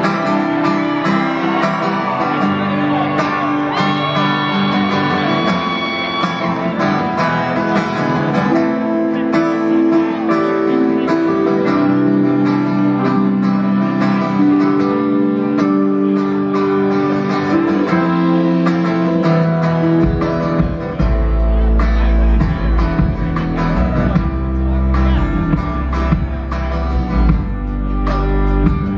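Live band playing an instrumental passage: a strummed acoustic guitar over sustained keyboard chords. A deep bass comes in about two-thirds of the way through.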